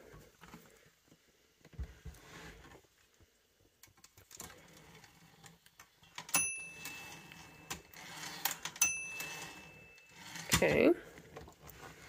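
A Hermes 3000 typewriter's carriage being moved by hand, with small clicks and rattles. Its margin bell dings twice, about two and a half seconds apart, each ring lasting about a second.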